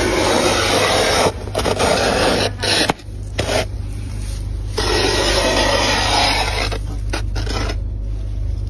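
Thick freezer frost being scraped off the freezer wall in long strokes, several in a row with short breaks, fading near the end, over a low steady hum.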